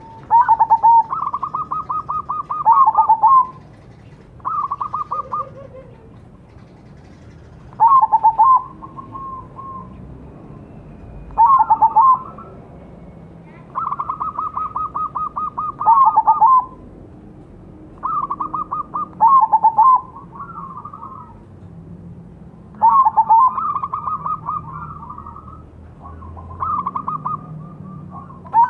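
Crossbred zebra dove (perkutut) cooing: about eight phrases repeated every few seconds, each a fast stuttering run of notes around one pitch with a slightly lower note at the start and end.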